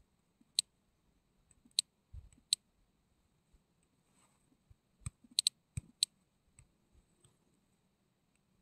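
About eight sharp clicks on an otherwise quiet track: three spaced out in the first few seconds, then a quick cluster of five about five to six seconds in.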